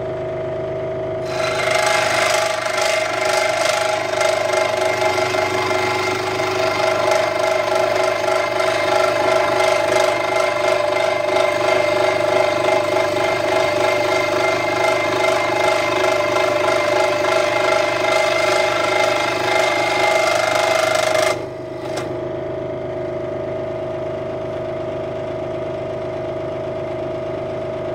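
Central Machinery 16-inch scroll saw running with a steady motor hum. From about a second in until about seven seconds before the end, its reciprocating blade cuts through a wooden workpiece, adding a loud sawing noise. Then the saw runs on freely with just the hum.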